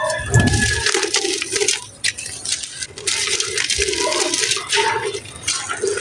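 Dry clay and gritty mud crumbling and crunching, a dense run of gritty crackles and sharp clicks, with a low thump about half a second in.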